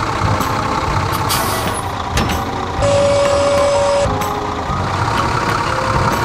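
Large farm tractor's engine running steadily as it reverses, with a short hiss about a second and a half in. About halfway through comes one loud, steady beep lasting just over a second.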